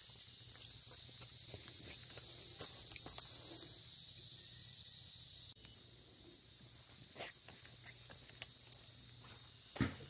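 A steady high-pitched insect chorus that drops away abruptly about halfway through. A few scattered knocks and footsteps are heard, the sharpest near the start and just before the end.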